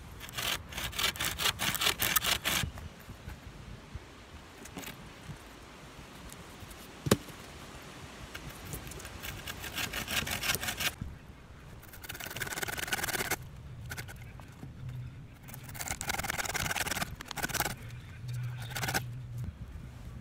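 Improvised bow saw, a saw blade strung on a bent green sapling, cutting through a thin green sapling in quick back-and-forth strokes. The sawing comes in several bouts with short pauses between, and there is a single sharp click about seven seconds in.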